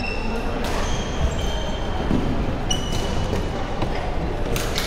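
Sneakers squeaking on a hardwood gym floor several times, short high squeals, mixed with sharp racket hits on a shuttle or ball, the loudest hits near the end.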